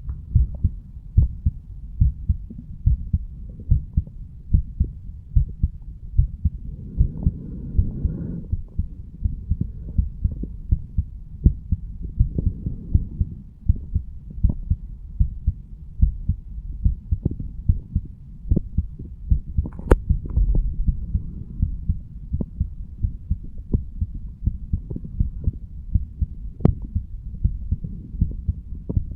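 A man's heartbeat recorded against the chest over the mitral valve area: a steady run of regular low beats. A brief rustle comes about eight seconds in, and a sharp click near twenty seconds.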